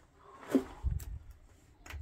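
Hand-work noises in a concrete-block room: a short scrape about half a second in, then a dull thump and a few light knocks and clicks.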